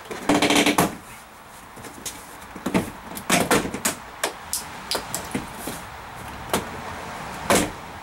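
Plastic retaining clips of a 1995 Dodge Ram pickup's inner door panel popping loose as the panel is pried and pulled off the door, heard as a string of irregular sharp pops and knocks. The biggest cluster comes just after the start and another strong pop comes near the end.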